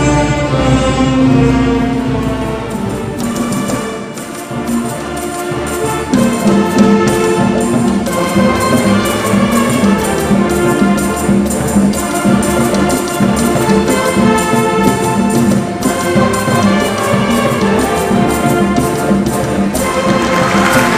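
Youth symphony orchestra playing live, strings and brass together. Sustained chords give way about six seconds in to a steady repeating figure in the low parts. Applause starts just before the end.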